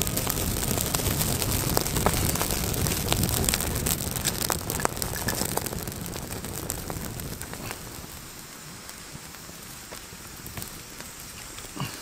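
Dry grass and twig tinder burning in a freshly lit campfire: dense crackling and rushing that dies down about halfway through into quieter, sparser crackles. There is a single knock near the end.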